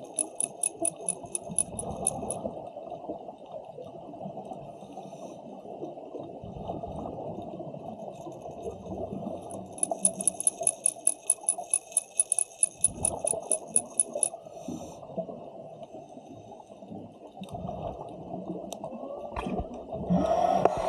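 Dolphins clicking underwater: two trains of rapid, evenly spaced clicks at about six a second, over a steady low rush of water, with a louder rush near the end.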